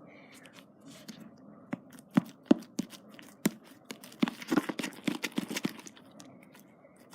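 Spoon stirring and scraping a sticky fluffy-slime mixture in a bowl, with a run of sharp clicks and knocks of the spoon against the bowl about two to five seconds in.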